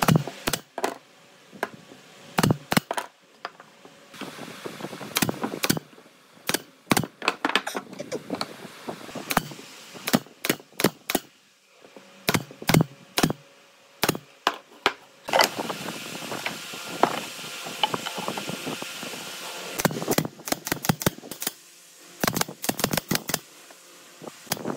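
Irregular sharp taps and knocks of workshop hand work, some in quick runs of several strikes, with a steady hiss for a few seconds past the middle.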